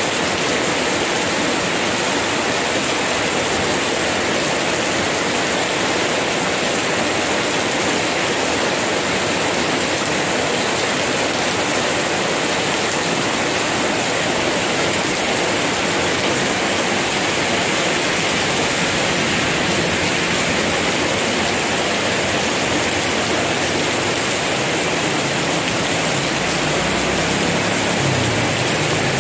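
Heavy rain pouring down, a loud, steady rushing hiss.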